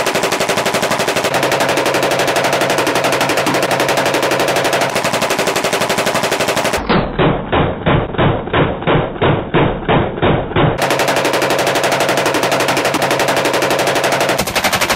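Heckler & Koch G36 5.56 mm rifle firing long strings of rapid fire, shots packed close together. About seven seconds in, the sound turns duller for about four seconds, with separate shots roughly three a second, before the rapid fire returns.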